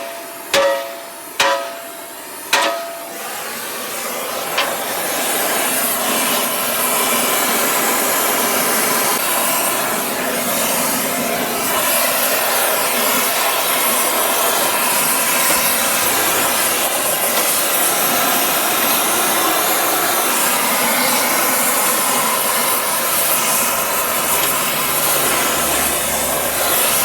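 Three hammer blows ringing on the steel of a bent backhoe part in the first few seconds, then a gas torch hissing steadily as it heats the steel so it can be straightened.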